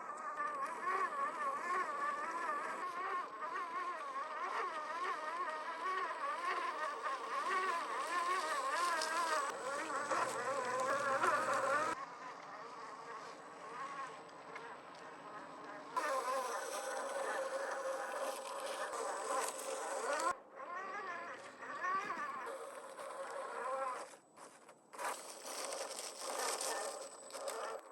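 Electric motor and metal gear whine of a 1/10-scale RC crawler, from its 540 brushed motor and single-speed transmission. The pitch wavers up and down as the throttle changes, and it breaks off and starts again several times.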